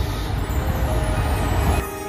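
Diesel railcar running past with a loud, steady, deep engine rumble. The sound cuts off suddenly near the end.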